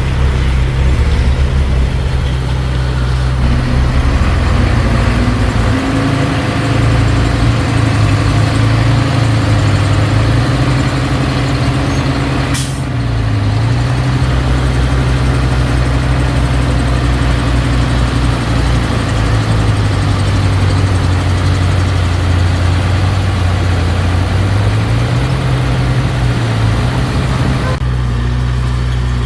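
Heavy diesel engine of earthmoving machinery running hard, its pitch rising and falling as the throttle changes, with one short sharp click about halfway through.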